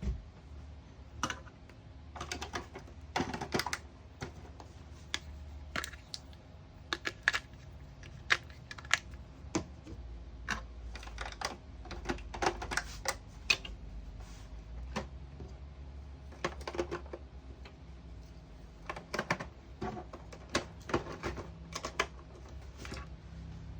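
Irregular tapping and short clusters of quick sharp clicks from a Snap Circuits 'machine gun' sound circuit that is set off by taps.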